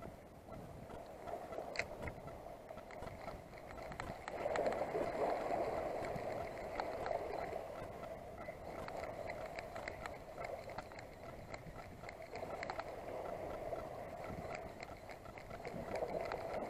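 Water lapping and washing against a stone breakwater, a steady wash that swells about four seconds in, with the faint ticking of a spinning reel being wound in as a lure is retrieved.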